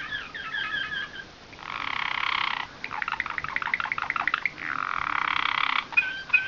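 A nightingale-type (slavujar) canary singing a continuous song. It opens with quick chirped notes, then two long rolling trills with a fast run of down-swept notes between them, and ends with sharp chirps.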